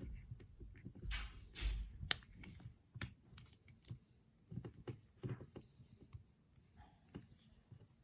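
Plastic clicking and rubbing as an AirPods charging case is pushed into a tight new protective case: irregular sharp clicks, with a couple of short swishing rubs in the first two seconds.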